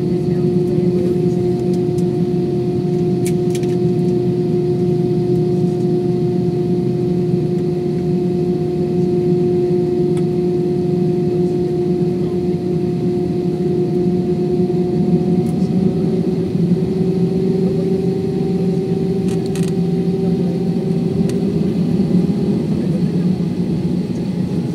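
Jet airliner cabin noise while taxiing: the engines running with a steady drone and hum, the tone rising slightly in pitch about two-thirds of the way through. A couple of faint clicks come through.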